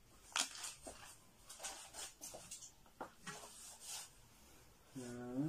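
Faint scattered rustles and light knocks of things being handled. About five seconds in, a man's voice starts a long drawn-out wordless tone that rises and then falls in pitch.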